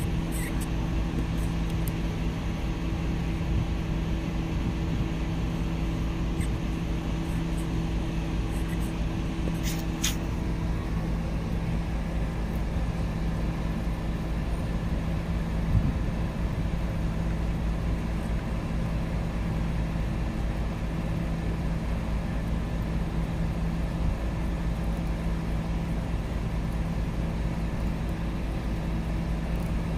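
A steady low mechanical hum, even in pitch throughout, with a couple of faint clicks about ten seconds in.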